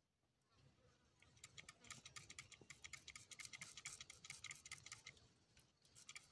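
Faint rapid ticking, many small clicks a second, starting about a second in and dying away about five seconds in, with a few more clicks near the end.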